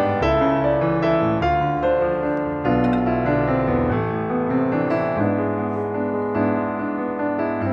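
Background piano music: a melody of separate notes over held low chords.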